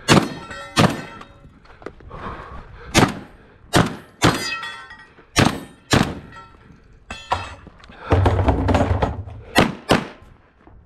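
Gunshots from a competitor's firearm during a 3-gun stage: about ten shots at an uneven pace, roughly half a second to two seconds apart, some followed by a short ringing tone. A stretch of rumbling noise comes between shots near the end.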